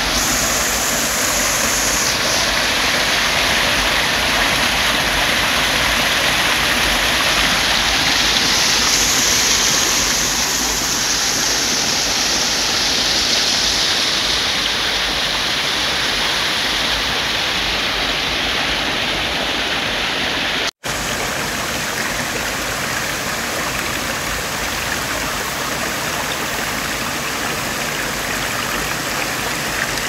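Rushing water of a small mountain stream cascading over boulders in a steady, loud splashing rush. The sound drops out for an instant about two-thirds of the way through.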